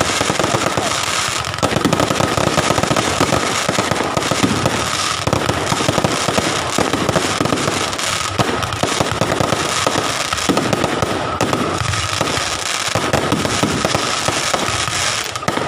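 Fireworks and firecrackers going off without a break: a dense, continuous run of rapid small bangs and crackles, with a steady high tone underneath.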